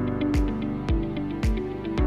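Instrumental background music with a steady beat, about two beats a second, over sustained notes.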